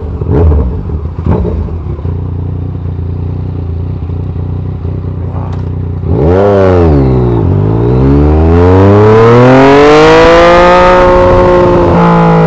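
Yamaha MT-09's 847 cc inline-three with an SC-Project exhaust idling, with two short bursts about a second apart near the start. About six seconds in it revs up sharply as the bike pulls away, dips at a quick gear change, then climbs in one long rising pull, levelling off before dropping again at the next gear change near the end.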